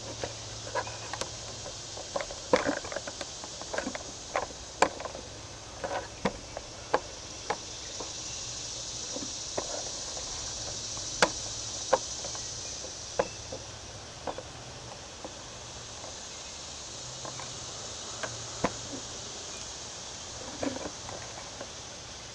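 A steady, high-pitched insect chorus in woodland, swelling for a few seconds in the middle, under irregular sharp clicks and snaps that are thickest in the first eight seconds.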